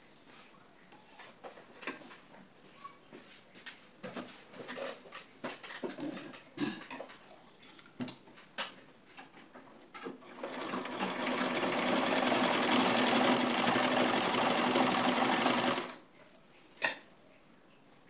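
Butterfly sewing machine, freshly cleaned and oiled, stitching through cloth in a steady run of about five and a half seconds that starts about ten seconds in and stops abruptly. Before it come light clicks and rustles of the machine and fabric being handled, and a single click follows.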